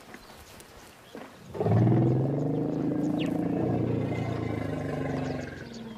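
African elephant giving one long, low call of about four seconds, starting about a second and a half in and fading out near the end.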